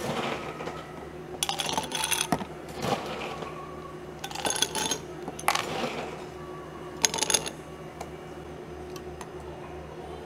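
Ice cubes dropped into two stemless drinking glasses, clinking and rattling against the glass in about half a dozen short bursts through the first seven seconds, over a steady low appliance hum.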